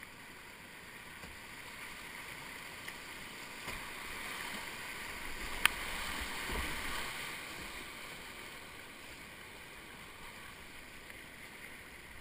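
Whitewater rushing, heard from a kayak. It grows louder as the boat runs a small rapid about halfway through, then eases. There is one sharp click a little past the middle.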